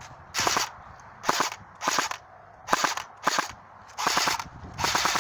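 Airsoft gun firing about seven short bursts of rapid shots, each burst a quick rattle of snaps lasting a fraction of a second.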